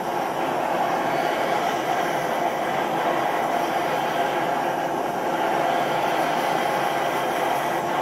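Gas torch burner firing a small firebrick forge, a steady, even rushing noise as a knife blade is heated for hardening.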